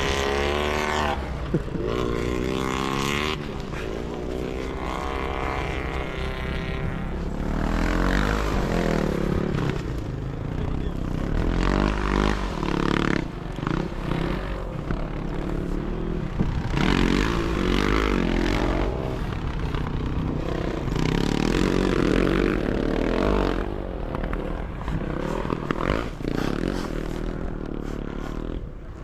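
Several sidecar motocross motorcycles racing, their engines revving hard and easing off again and again, with the pitch rising and falling as the outfits pass.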